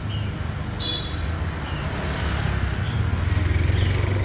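Motorbike engine running close by over steady street traffic, getting louder about three seconds in as it passes. A few short high chirps sound over it.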